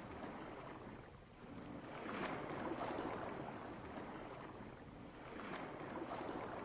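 Ocean waves washing in a slow rhythm, each swell rising and fading. Two swells fall about three and a half seconds apart, one a couple of seconds in and one near the end.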